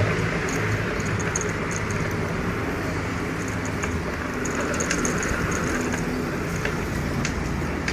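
Steady rumble of road and wind noise while riding a bicycle, with light ticks scattered through it.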